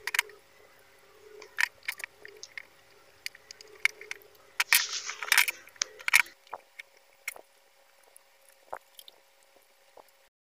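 Small metal exhaust-fan motor handled and screwed together: scattered clicks and knocks of a screwdriver and the steel motor casing, with a longer scraping rustle about five seconds in. The sound stops abruptly near the end.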